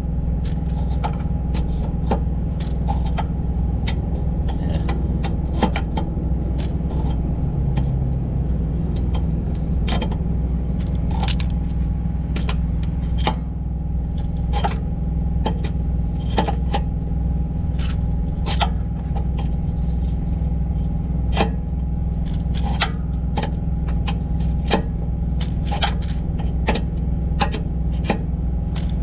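Steady hum of an idling engine under irregular sharp metallic clicks and clinks of a hand wrench working on the airbag's mounting nuts.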